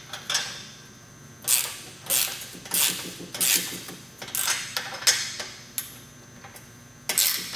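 Socket ratchet tightening the 14 mm nut of a U-bolt exhaust clamp. The pawl clicks in a short burst on each back-swing: about nine strokes, one every half-second to a second.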